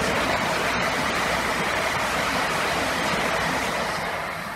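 Great Western Railway passenger train passing close by at speed: a steady rush of wheel and air noise with a low rumble underneath, fading away near the end as the last coach goes by.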